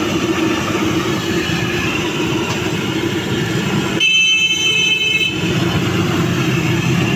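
Steady road traffic noise, with a vehicle horn sounding for about a second starting about four seconds in.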